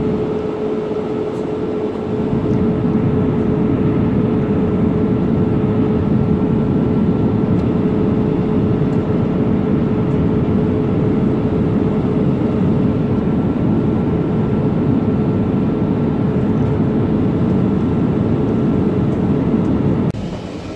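Cabin noise of an Air India Boeing 787 Dreamliner in cruise flight: a loud, steady rushing hum with a steady low tone running through it. It drops abruptly just before the end.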